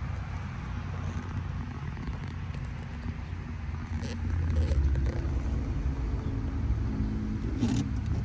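Car engine running with a steady low rumble, heard from inside the car, its pitch climbing a little in the second half as it revs or pulls away.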